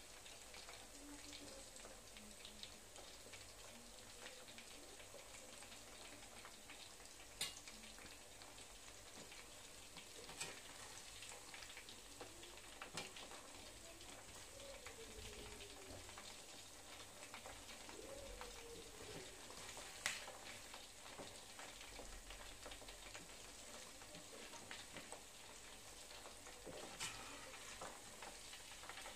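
Marinated, flour-coated chicken pieces deep-frying in hot oil in a pan, a faint steady crackling sizzle. A few sharp clicks come from the metal slotted spoon touching the pan as the pieces are stirred.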